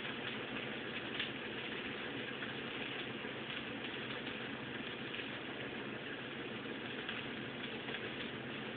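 Steady background hiss and low hum of room tone, with a few faint soft clicks as fruit is pushed onto a bamboo skewer, one of them about a second in.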